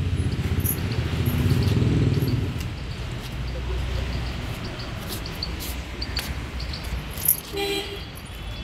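A motor vehicle's engine rumbling, loudest for the first two and a half seconds and then fading to a low hum, with faint scattered bird chirps.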